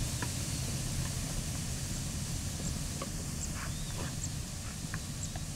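Steady open-air background noise, a low rumble with a hiss over it, and a few faint short calls scattered through it.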